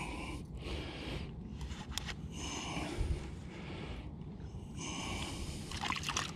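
A person breathing close to the microphone: a series of soft hissing breaths, coming and going every second or so.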